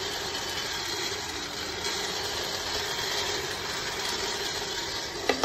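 Barwell electric peanut roaster running, its motor-driven stirring arm sweeping coffee beans near the end of the roast around the pan: a steady rustling of tumbling beans over a faint motor hum, with a few sharp clicks near the end.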